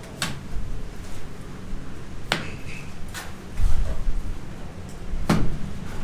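Sharp knocks and clicks of hand plastering work, a trowel striking the mortar bucket and the wall, four of them spaced one to two seconds apart, with a dull thud near the middle.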